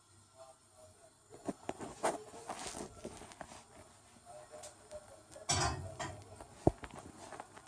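Handling noise: scattered light clicks and knocks, with a louder scraping burst a little past halfway and a sharp click about a second later.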